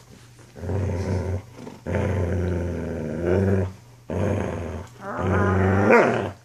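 Young wolfdog play-growling while roughhousing over a plush toy: four long growls with short breaks between them, the last one the loudest and rising in pitch at its end.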